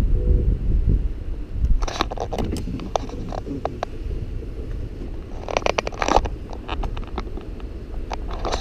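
Wind buffeting the microphone with a low rumble, strongest in the first couple of seconds. Two short bursts of scraping and clicking come about two seconds in and again near six seconds.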